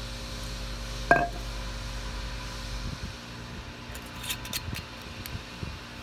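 Red wine poured from a glass bottle onto a wooden block, with one sharp knock and a brief ring about a second in, and a few light ticks of drips later on, over a steady low hum.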